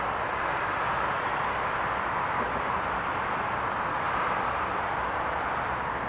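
Steady outdoor city ambience: an even rush of distant traffic noise with no distinct events.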